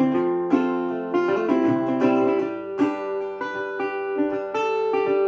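Old National resonator guitar played solo: plucked notes struck about twice a second over a ringing low bass note, the instrumental lead-in to a song.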